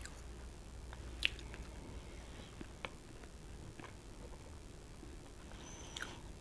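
A person chewing a bite of soft iced cake close to a clip-on microphone: quiet mouth sounds with a few small scattered clicks, the sharpest about a second in.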